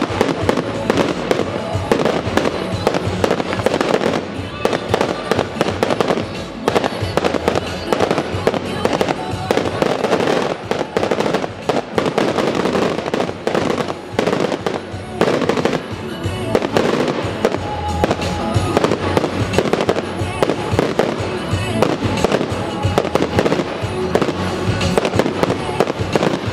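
Fireworks display: a dense, continuous barrage of shells bursting in rapid succession, with music playing underneath.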